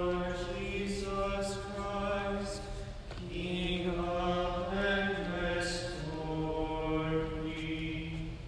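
A lone male voice chanting unaccompanied in long held notes that step up and down in pitch, with a short break about three seconds in: the Lenten Gospel acclamation sung before the Gospel.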